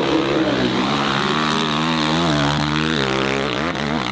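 Motocross bike engine sound effect running steadily, its pitch wavering and dipping about three seconds in before rising again.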